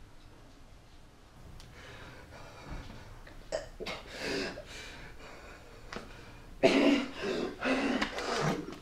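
A man sobbing: shaky, gasping breaths at first, then loud, broken crying from about seven seconds in.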